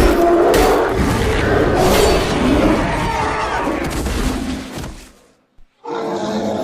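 Designed creature roar made from bear vocalizations: a long, loud growling roar with a few sharp cracks in it that fades out about five seconds in. After a short silence a second roar begins near the end.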